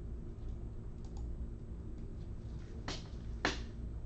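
A few scattered keystrokes on a computer keyboard, with two louder clicks about half a second apart near the end, over a steady low electrical hum.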